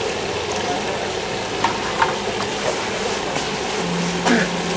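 Street-market background noise: a steady wash of sound under a low hum, with a few sharp clinks, about two seconds in and again near the end.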